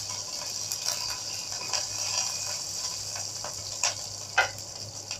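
Green chillies and mustard seeds sizzling in hot oil in a small frying pan, a steady hiss. Near the end a spoon stirs them, with a couple of sharp clicks against the pan.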